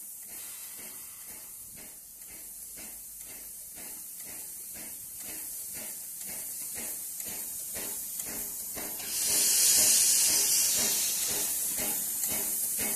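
USATC S160 2-8-0 steam locomotive standing in steam, hissing steadily from its cylinders, with a faint regular pulsing underneath about three times a second. About nine seconds in, a much louder steam hiss starts and carries on.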